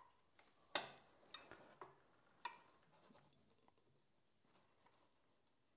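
A few faint clicks and knocks, the loudest about a second in, as a tube clamp is fitted by hand onto a motorcycle crash bar's tubing.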